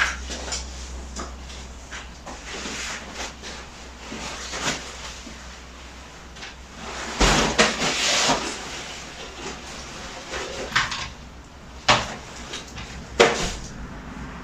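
Rain-wet tent being pulled out and handled: scattered rustles and clicks, a longer rustle about seven seconds in, and two sharp knocks near the end.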